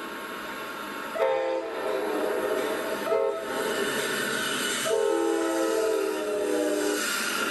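Amtrak P42DC diesel locomotive's multi-chime air horn sounding three blasts (a short one about a second in, a shorter one near three seconds, then a long one from about five seconds in) over the steady noise of the moving train.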